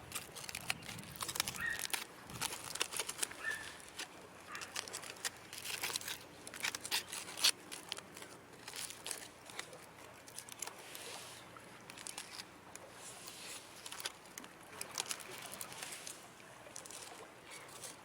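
Irregular clicking and crinkling handling noises, many short sharp ticks scattered unevenly with a louder click near the middle.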